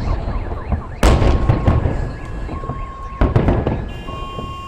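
Fireworks salute going off: a string of bangs and crackles over a low rumble, with a loud bang about a second in and another about three seconds in. Car alarms wail and beep under the blasts.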